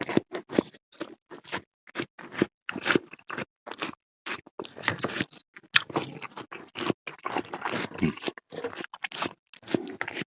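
A person chewing mouthfuls of cheese-topped fruit salad close to the microphone, a run of irregular crunches and chewing.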